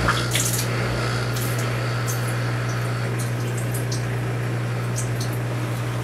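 Countertop dishwasher running its wash cycle: a steady motor hum under the hiss and splash of water spraying inside the tub, with scattered small ticks of water striking.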